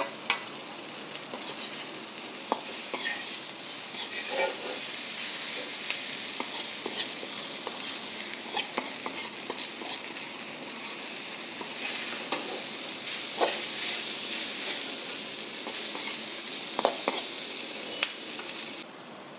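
Prawns sizzling in oil and spice paste in a metal wok over a high gas flame, while a metal spatula stirs and scrapes against the pan in irregular clatters. The sizzle drops away sharply just before the end.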